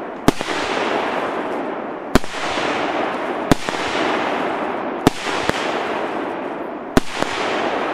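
Plan-X CLE4076 firework cake, 24 shots of 36 mm, firing: about seven loud, sharp bangs at one- to two-second intervals, with a dense crackling hiss from the bursting stars between them.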